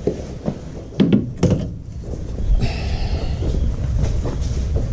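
Tools and metal straightedges being handled and shifted: a few sharp knocks and clatter about a second in, then a scraping hiss lasting about a second and a half.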